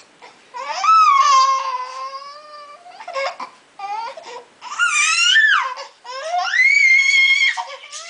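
Infant whining and fussing: a string of drawn-out, high-pitched cries that rise and fall in pitch, with a few short squeaks between them and one long held cry near the end.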